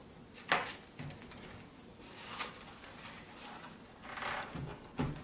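Laptop battery being released with a screwdriver and slid out of the back of the laptop: a sharp plastic click about half a second in, a few lighter knocks and a brief scrape, then two low thumps near the end.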